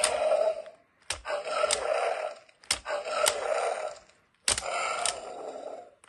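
Hunt 'n Chomp T. rex toy's electronic roar, set off by pressing down on its back. Four times in a row, each starts with a sharp click and runs a bit over a second as a growling roar through the toy's small speaker, with short pauses in between.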